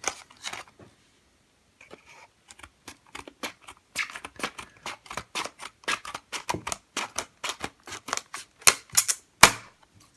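A padlock's retail packaging being opened and handled: a dense, irregular run of sharp clicks and taps starts about two seconds in, with a few louder snaps near the end.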